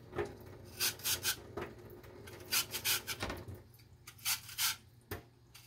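A blade working a raw lotus root: short rasping strokes, about a dozen in irregular groups.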